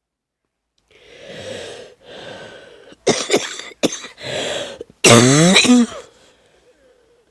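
A woman with no voice and a wheezy chest breathing and coughing: two breathy breaths, a quick run of three sharp coughs about three seconds in, another breath, then a long, loud, rough cough with a wavering pitched squeak in it.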